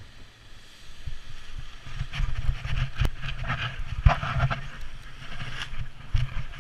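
Wind buffeting the microphone while a paraglider wing (UP Ascent 2) is pulled up off the grass in a stiff breeze. Its fabric rustles and flaps as it fills, loudest from about two to five seconds in.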